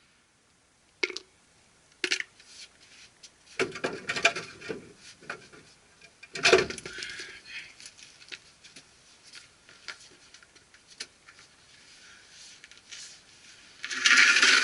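Intermittent metallic clinks and knocks of hand tools and parts being handled during steering work, the loudest knock about halfway through, with a louder burst of tool noise starting near the end.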